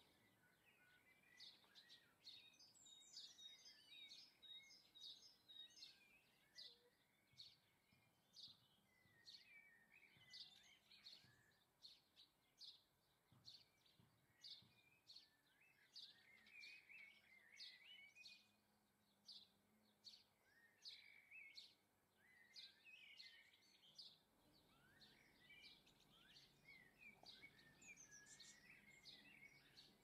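Faint chirping and twittering of small garden songbirds: a steady run of short, high chirps about one to two a second, with patches of quicker twittering.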